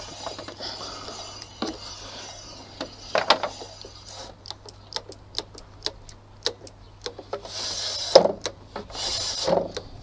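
Ratcheting socket wrench clicking in an even run, about three clicks a second, as a bolt is turned, with handling and rustling before it and a single loud knock near the end.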